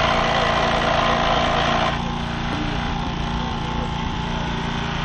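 Small engine running steadily, the kind that drives a hydraulic rescue tool through its hose. For the first two seconds a louder hissing noise rides over it, then cuts off suddenly.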